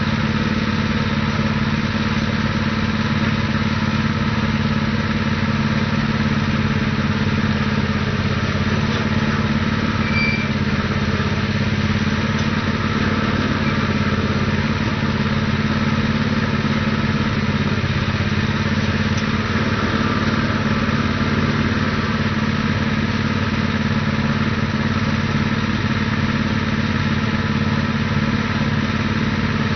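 Predator 212cc single-cylinder four-stroke gasoline engine powering a lightweight cable tool drill rig, running steadily while the rig is bailing the borehole.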